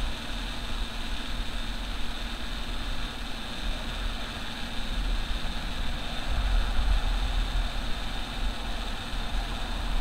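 Steady low rumble under a constant hiss, the rumble swelling about six seconds in.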